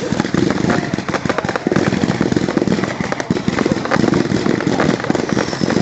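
A 100-shot consumer fireworks cake firing in rapid succession: a dense, continuous string of pops and crackles, with a few faint whistling glides over it.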